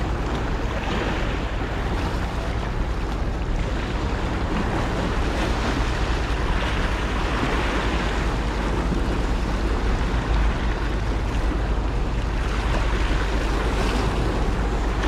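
Sea surf washing and breaking against shore rocks, swelling and easing in several washes, with wind rumbling on the microphone.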